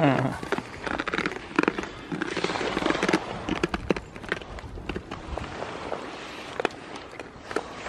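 Irregular clicks, knocks and rustling as goats crowd close around the camera and take food from a hand.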